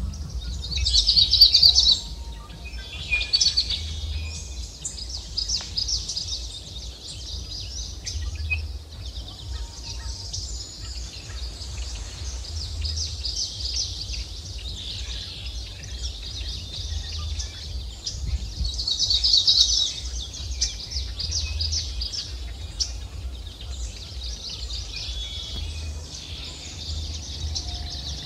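Birds chirping rapidly and continuously in the trees, swelling louder about a second in and again about two-thirds of the way through, over a steady low rumble.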